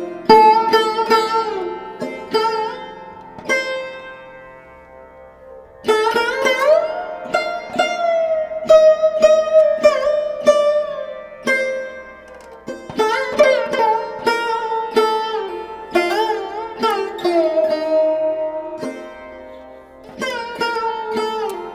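Background instrumental music on a plucked string instrument like a sitar, with bending, gliding notes in phrases that swell and fade.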